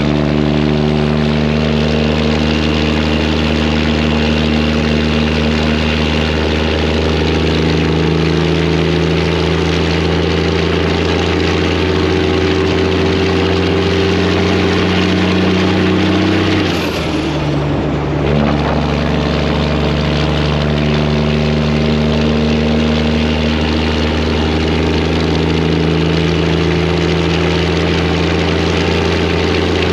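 Freightliner semi truck's Detroit diesel engine pulling steadily on loud exhaust pipes. About halfway through, the engine note breaks off briefly and comes back lower, then climbs again, as in a gear change on the 10-speed Eaton Fuller.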